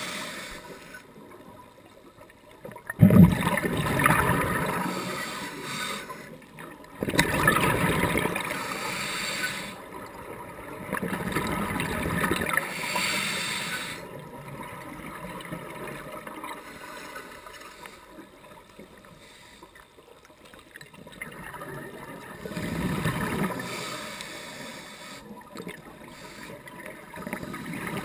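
Scuba regulator breathing heard underwater: several exhaled rushes of bubbles a few seconds apart, the loudest about three seconds in, with quieter hiss between breaths.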